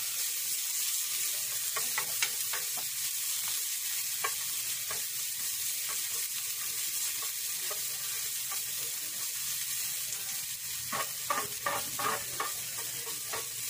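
Chopped onion sizzling in a little oil in a frying pan, stirred with a spatula whose clicks and scrapes against the pan come thicker near the end.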